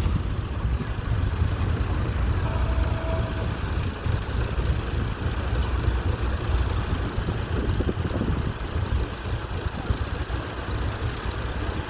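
Fordson Model N tractor's four-cylinder engine running steadily with a low rumble.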